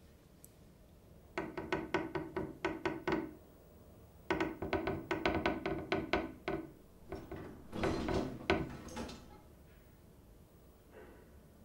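Rapid knocking on wood in three bursts of about five knocks a second, each knock with a ringing tone.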